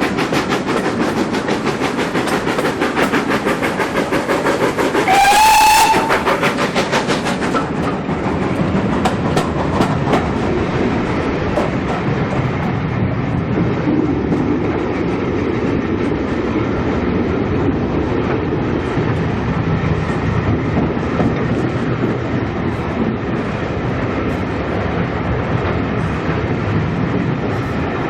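Steam train running at speed behind a GWR Manor Class steam locomotive, with rapid sharp beats in the running noise; the locomotive's whistle sounds once about five seconds in, a little over a second long and rising slightly in pitch. After that the sound turns to a duller, steady rumble.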